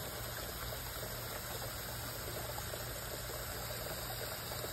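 Water in a garden pond running and trickling steadily, with a constant low hum underneath.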